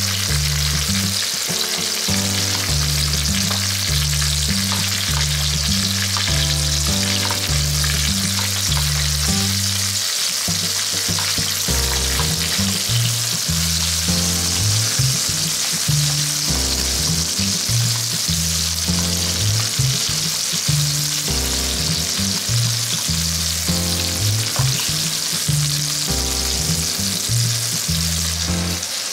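Chicken thigh and bacon sizzling steadily in butter in a frying pan, with tongs moving the pieces. A background music track with a regular bass line plays underneath.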